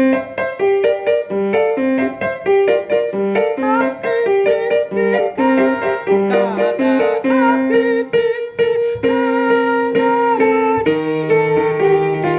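Keyboard music: a melody of short and held notes over a moving bass line, at a steady tempo.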